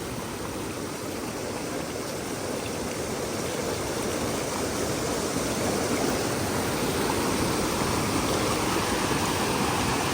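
Rushing river water, a steady noise that grows gradually louder.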